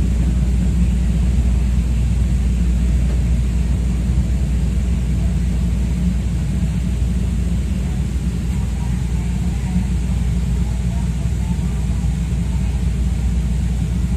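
Steady low rumble of outdoor urban background noise, with no distinct events.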